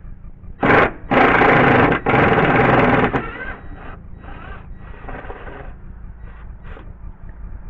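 A cordless power tool run in bursts on deck timber: one short burst, two loud bursts of about a second each, then a string of quieter short bursts.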